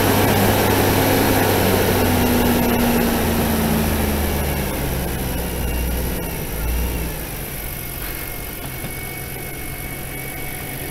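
Nissan Skyline GT-R R32's RB26DETT twin-turbo straight-six idling. Its note is louder and a little higher at first, then sinks slightly and quietens about seven seconds in.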